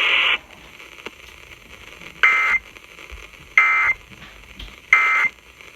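Emergency Alert System end-of-message signal over FM radio: three short bursts of digital SAME data about 1.3 seconds apart, marking the close of the warning broadcast. A brief hiss sounds just before them.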